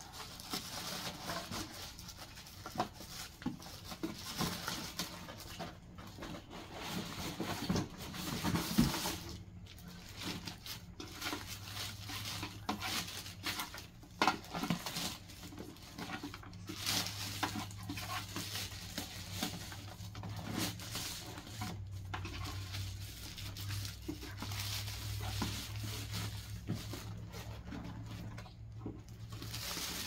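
Plastic bag and cardboard packaging rustling and crinkling as a boxed bird feeder is unwrapped by hand, in irregular handfuls. A faint steady low hum starts about ten seconds in.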